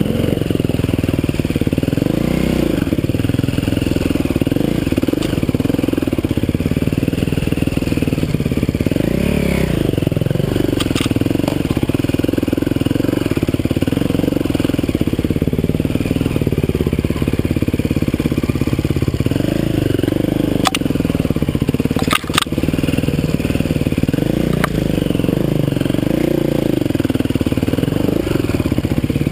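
Dirt bike engine running under way, revving up and falling back again and again with the throttle. A few sharp knocks cut through, two close together about three-quarters of the way through.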